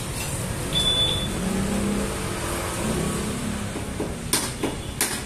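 Steady shop and traffic rumble, then from about four seconds in a few sharp metallic clicks, roughly three a second, from a hand wrench working on the steering head of a Samurai 155 scooter whose handlebar turns stiffly.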